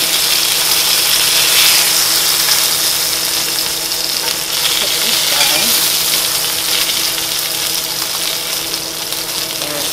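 Duck breast sizzling in rendered duck fat in a cast-iron skillet: a steady frying hiss, with a steady low hum underneath.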